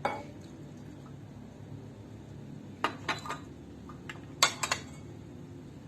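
Light clinks and knocks of kitchen dishes and glassware: a small cluster about three seconds in and a louder one about four and a half seconds in, over a faint steady low hum.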